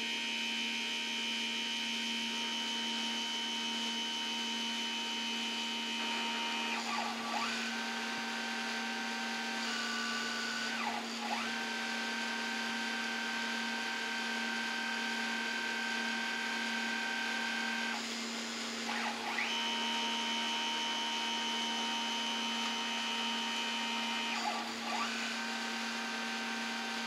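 Home-made 3-axis CNC mill running a chamber-fluting program: its axis drive motors whine in steady high tones that switch to a different pitch every few seconds as the moves change, over a constant low hum.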